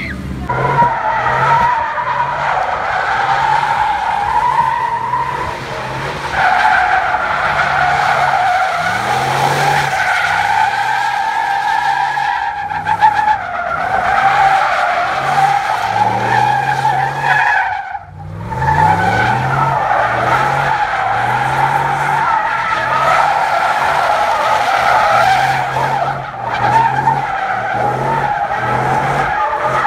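A car doing donuts: its tires squeal continuously while the engine revs up and down in repeated surges. The squeal breaks off briefly about two-thirds of the way through, then picks up again as the engine revs back up.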